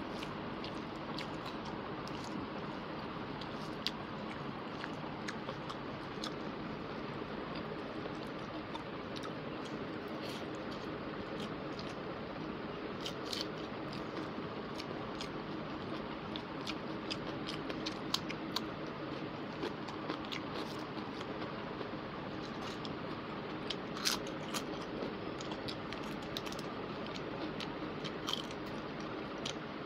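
Close-miked eating sounds: a person chewing rice and chicken curry eaten by hand, with scattered small mouth clicks and smacks over a steady hiss.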